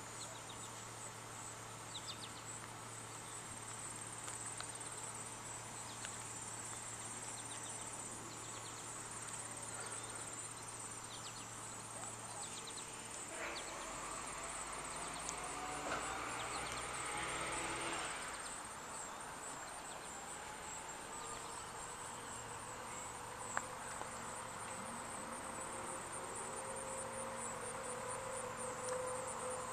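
Steady high insect chorus, with a vehicle passing about halfway through. In the last ten seconds a faint tone rises and levels off, growing slowly louder: a distant outdoor warning siren winding up.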